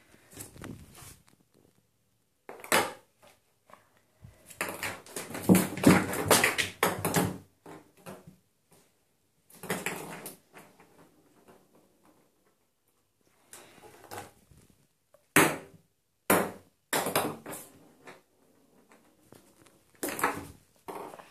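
Ping pong ball bouncing, rolling and clattering around an empty bathtub as a cat bats it. It comes in bursts of quick light clicks and rattles with quiet gaps between, busiest about four to seven seconds in.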